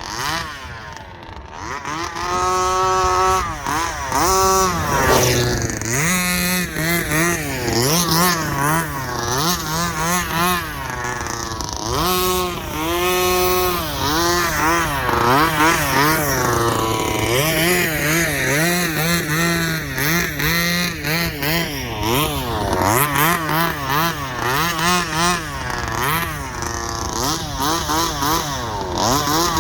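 Rovan Baja 32cc two-stroke petrol engine of a 1/5-scale RC car being driven, the throttle worked repeatedly so the pitch rises and falls again and again. It drops low in the first two seconds before revving up.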